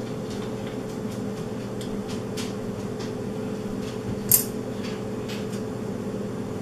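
Plastic pedal of a Cubii Jr elliptical being handled against its crank arm while its screw holes are lined up: faint scattered clicks, and one sharp plastic clack about four seconds in. A steady background hum runs underneath.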